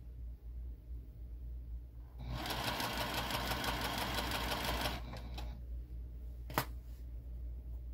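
Juki sewing machine stitching in one run of about three seconds, starting a couple of seconds in, then a few separate stitches. A single sharp click comes near the end. This is stop-start stitching as the fabric is eased along a curved seam.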